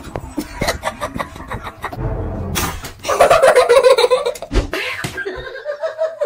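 A person laughing, loudest in the middle. Scattered knocks and clatter come before it.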